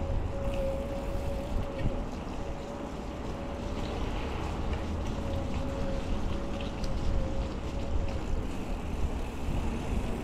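Wind buffeting the microphone of a camera on a mountain bike riding along a wet paved path, with tyre noise and a steady hum underneath and a few faint ticks.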